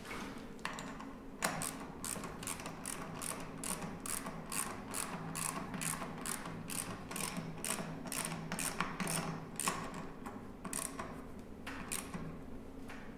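Socket ratchet wrench clicking in quick, even strokes, about two to three a second, as a battery cable terminal nut on the motor controller is tightened. The strokes thin out to a few single clicks near the end.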